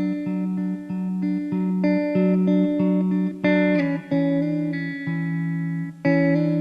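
Background music: plucked guitar notes picking out a repeating pattern.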